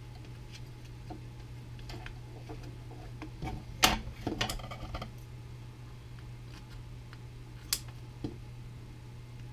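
Small clicks and knocks of a metal snowshoe binding being handled on a wooden workbench, with a louder clatter about four seconds in as a pair of scissors is picked up off the bench. Near the end comes one sharp snip of the scissors. A steady low hum runs underneath.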